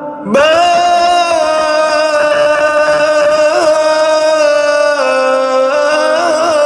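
A man's solo voice singing one long held vowel in Arabic improvised-poem (irtijal) style. It comes in about a third of a second in with a slight upward scoop, holds steady with a small ornamental turn in the middle, steps down a little about five seconds in, and turns again near the end.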